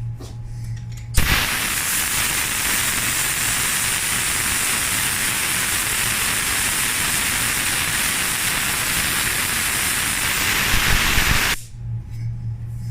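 Sagola paint spray gun hissing as compressed air atomises paint, with the trigger held for about ten seconds. The hiss starts and stops abruptly.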